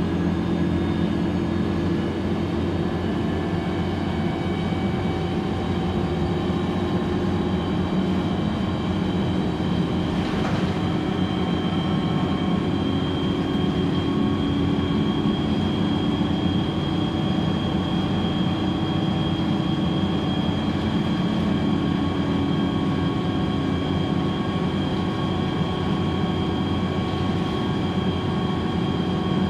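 Cabin noise of a 2010 Gillig BRT transit bus cruising steadily at highway speed: its Cummins ISL9 inline-six diesel and Voith D864.5 automatic transmission give a constant drone under tyre and road noise, with a steady high whine above it.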